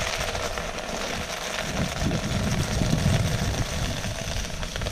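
Wind buffeting the microphone: a steady rushing noise with a low rumble that swells about two to three seconds in.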